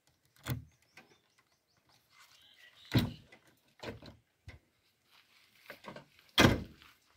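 Cab door of a JCB backhoe loader being unlocked and opened: a series of short metal clicks and clunks from the key, latch and door. The loudest clunks come about three seconds in and again near the end.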